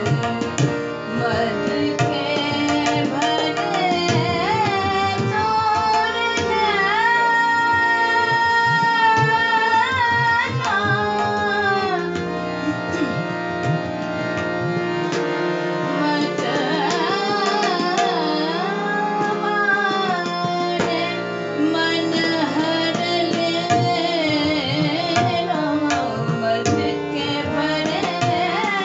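A woman singing a Khamaj thumri in Hindustani classical style, with long held notes and quick ornamented glides. Tabla strokes and a steady drone accompany her.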